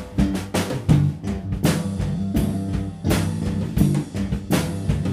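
Background music with a steady drum-kit beat, a strong hit about every 0.7 seconds, over a bass line.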